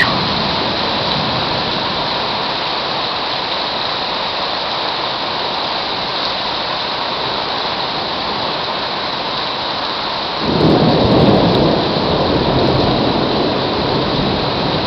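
Heavy rain falling steadily in a thunderstorm, with a low rumble of thunder swelling in about ten seconds in and then easing.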